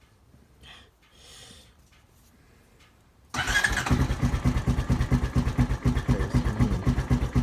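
Four-wheeler (ATV) engine catching about three seconds in after a quiet stretch, then running with a rapid, steady firing beat.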